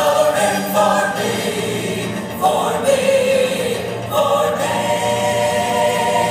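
Choir singing a gospel-style song with accompaniment, moving into a long held chord in the second half.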